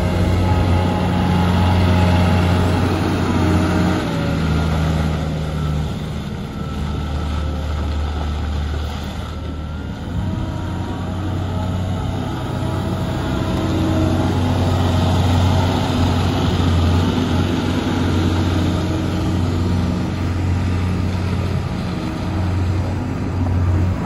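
Komatsu SK 820 skid-steer loader's diesel engine running as the machine drives and turns, its note shifting with load a few times, with a thin higher whine above the engine sound.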